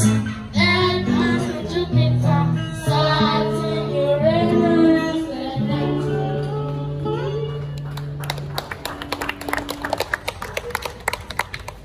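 A song sung with instrumental accompaniment over held bass notes, ending about eight seconds in, followed by a group of children clapping for a few seconds.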